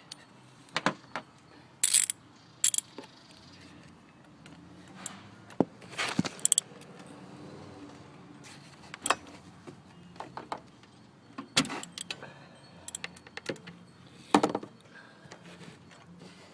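Steel hand tools working on a spark plug: a ratchet, extension and spark plug socket clicking and clinking against one another, in scattered sharp metallic clicks with a few brief ringing clinks and short runs of quicker clicks.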